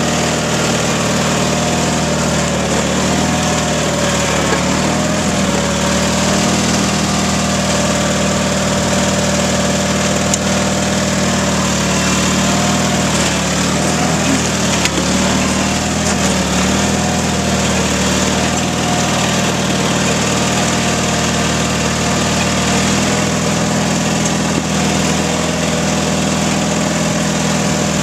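Small garden tractor engine running steadily while pushing snow with a front blade, its pitch wavering a little at times as the load changes.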